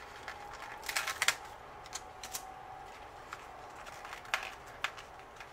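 Soft clicks and crinkles of paper stickers being peeled off their backing sheet and handled by fingers, in short clusters about a second in, around two seconds and again past four seconds, over a faint steady hum.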